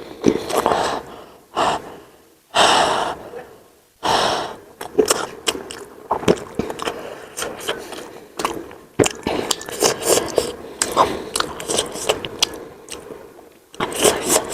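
Sharp gasping breaths through the mouth, four in the first four seconds and another near the end, from someone eating spicy momos close to the microphone: a reaction to the chili heat. In between comes a run of wet chewing and lip-smacking clicks.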